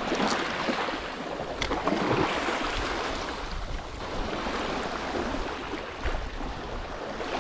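Small waves washing in the shallows of a fjord shore, with some wind rumbling on the microphone.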